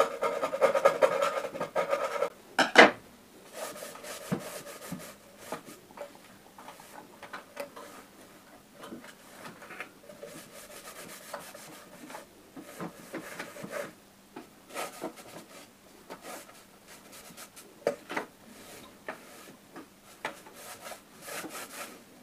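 Small brush scrubbing a rust spot on a quartz room heater's sheet-metal reflector, then a cloth rubbing and wiping the reflector, with scattered light knocks. The scrubbing is loudest in the first couple of seconds, with a sharp knock just under three seconds in.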